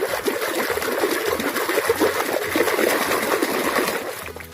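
Water splashing and sloshing as a muddy plastic toy airplane is washed by hand, fading out near the end.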